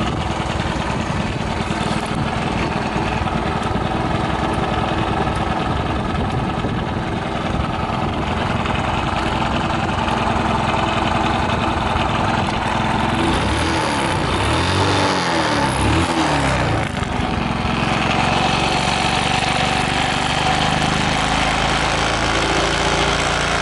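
Suzuki Gag's 50cc two-stroke single-cylinder engine running at idle after a cold start. About halfway through it is blipped several times, the pitch rising and falling, then settles back to a steady run. It revs up cleanly with no abnormal noises.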